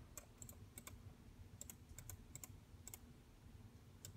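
Faint, scattered clicks of a computer mouse and keys, about a dozen, some in quick pairs, over a low steady hum.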